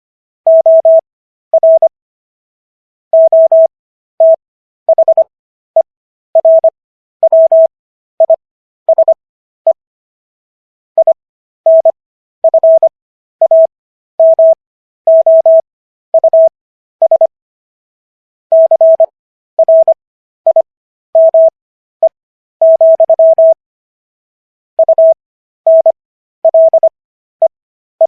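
Morse code sent as a single steady beeping tone, keyed on and off in short dots and longer dashes with longer gaps between letters and words: Farnsworth spacing at 15 words per minute, spelling out the text of the Fifth Amendment of the US Constitution.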